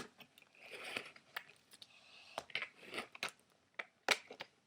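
Protective plastic film being peeled and pulled off a toy sonic screwdriver: scattered sharp clicks and crackles of plastic handling, with a couple of brief rustling peels. The loudest snap comes a little after four seconds in.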